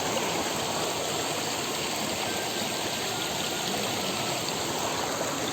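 Small, clear stream flowing: a steady, even rush of running water.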